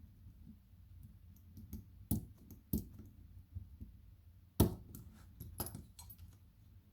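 Small metal gutting tools clicking and scraping against a BKS lock cylinder as its retaining C-clip is worked off: a run of irregular sharp metallic clicks, the loudest about halfway through.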